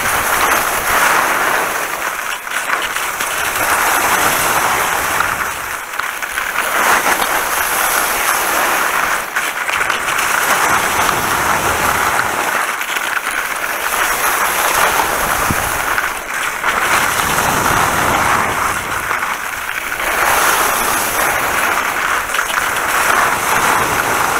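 Skis hissing and scraping over wet snow on a downhill run, the hiss swelling and easing every three to four seconds as the skier turns.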